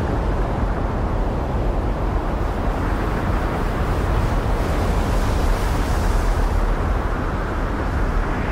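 Storm at sea: wind and heavy breaking waves make a dense, steady rush of noise that swells for a moment about halfway through.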